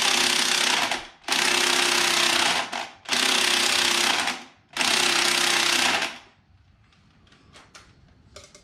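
Impact wrench hammering in four bursts of about a second each, straining on a stuck nut that does not break loose.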